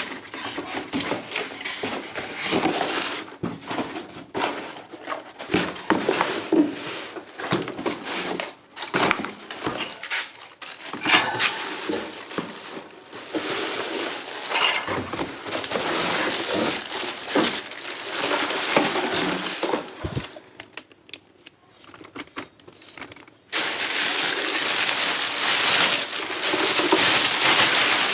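Packaging being handled and opened: irregular rustling and crinkling with scattered sharp clicks and knocks. There is a brief lull, then a louder continuous rustle starts about three-quarters of the way through.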